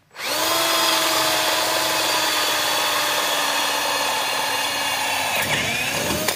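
Cordless drill running steadily under load, boring a large, freshly hand-sharpened twist drill bit into a wooden board. Near the end the motor note wavers and bends before it cuts off.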